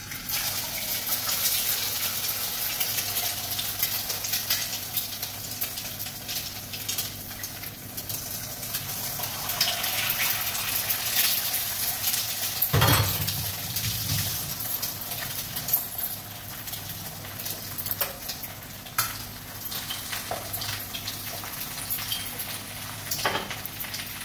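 Hot oil sizzling in a kadai on a gas burner, with small utensil clicks throughout and a louder knock about 13 seconds in.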